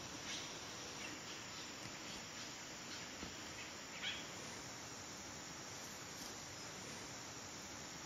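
Steady hum of a tropical forest insect chorus, with a few brief high chirps, the clearest about four seconds in.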